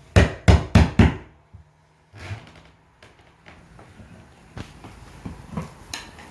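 Four quick, loud knocks in the first second, then scattered softer knocks and scrapes, as the cut section of yellow tongue particleboard flooring is worked loose and lifted.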